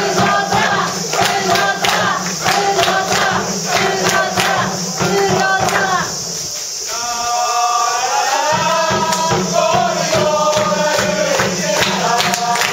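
Football supporters chanting in unison, a group of voices singing a repeated terrace song over a steadily beating drum. The drum drops out for about a second and a half near the middle while the singing carries on, then comes back in.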